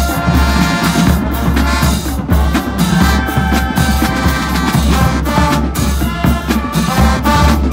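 Loud music with drums and a strong, steady bass line.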